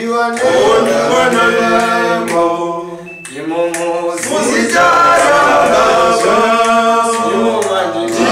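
Male a cappella group of six voices singing a Shona gospel song in close harmony, with no instruments. The voices dip briefly about three seconds in, then come back in together.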